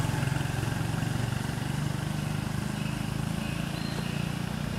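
A motor engine running steadily at a low pitch with an even pulse, easing off slightly. A faint short chirp about three-quarters of the way through.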